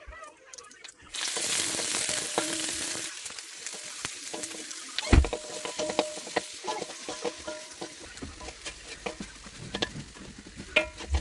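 Egg fried rice sizzling in a hot pan as it is stir-fried, with a spatula clicking and scraping against the pan. The sizzle starts about a second in, loudest at first and then quieter, and there is a sharp knock of the spatula on the pan about five seconds in.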